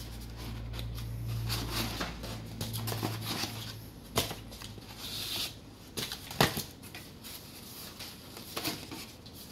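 Cardboard packing blocks being handled and pulled out of a desktop PC case: rustling and scraping of cardboard with a few sharp knocks, the loudest a little past halfway. A low steady hum runs underneath for the first four seconds or so.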